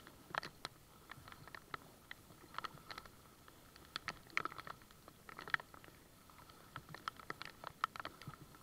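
Kayak paddle strokes in rain: water from the paddle and raindrops patter close by in clusters of sharp ticks about every one to one and a half seconds. A faint steady high tone runs underneath.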